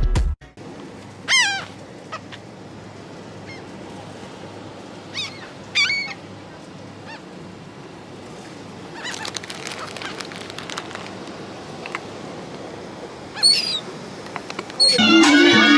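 Gulls calling over the water: a few short, falling cries spread out over the stretch, above a steady background of wind and water noise.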